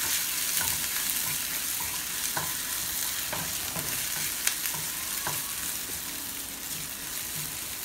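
Crushed ginger, garlic and green chillies sizzling in hot oil in a nonstick frying pan, frying as a tadka. A plastic spatula stirs them, scraping and tapping the pan about once a second, with one sharper knock about halfway through.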